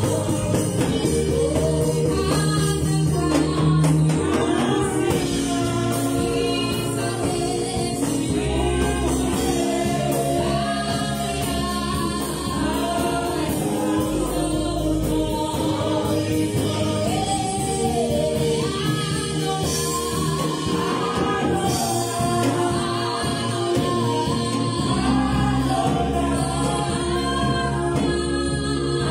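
Gospel choir of several voices singing a worship song, accompanied by keyboard and drum kit.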